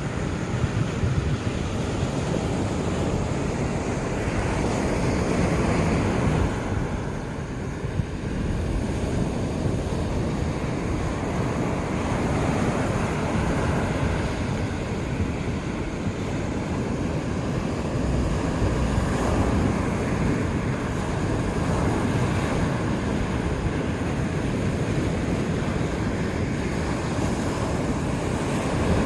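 Sea surf breaking and washing up on the beach in continuous swells that rise and ebb, with wind buffeting the microphone.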